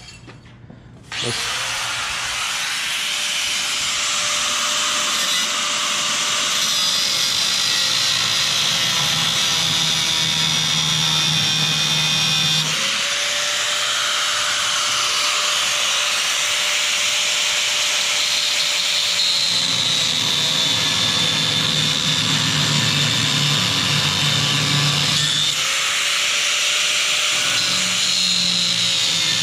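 A power tool running steadily in several long stretches, with a faint motor whine that winds up and down.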